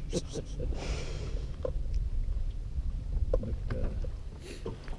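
Steady low rumble of wind and water around a small fishing boat, with a short hiss about a second in and scattered small clicks and knocks from handling the rod and line.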